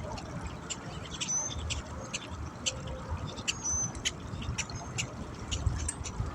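Small birds giving short, irregular high chirps and clicks, over a low steady rumble.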